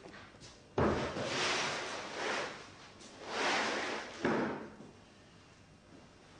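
Thinned white paint thrown and splashing onto a canvas laid flat on the floor: a sudden slap about a second in, a few rough splashing swells, and another sharp hit a little past four seconds, then it dies down.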